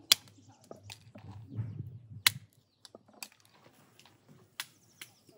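Walnut shells being cracked with blows of a small wooden mallet on a wooden stump: a series of sharp cracks about a second apart, two of them louder than the rest.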